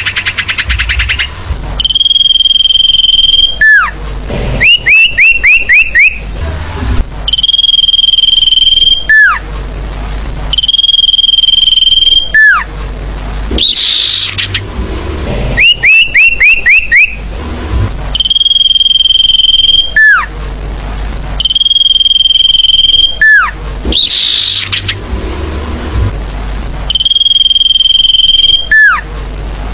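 Sirfu bird lure-call recording playing in a repeating loop: a held whistled note about a second long ending in a sharp falling note, alternating with quick runs of five rising chirps, the pattern coming back every few seconds. A low hum runs underneath.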